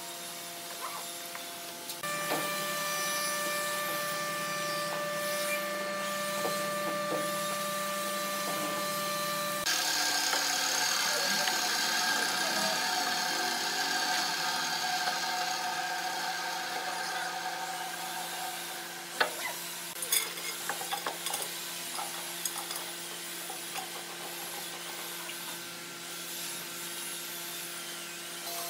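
Workshop noise while a hardwood bed frame is assembled. A steady machine hum with several fixed pitches gives way about ten seconds in to a louder hissing power-tool noise. In the last third come several sharp knocks as the wooden rails and bar clamps are set in place.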